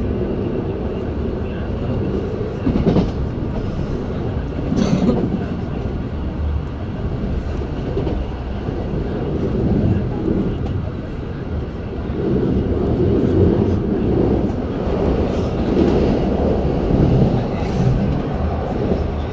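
MI09 RER A commuter train running between stations, heard from inside the carriage: a steady rumble of wheels on rails, with a few brief knocks.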